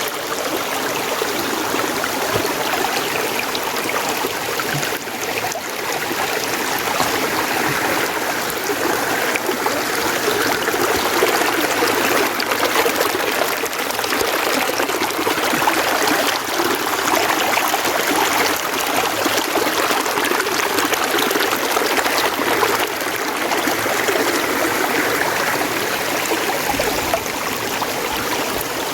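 Mountain stream of running water, flowing steadily.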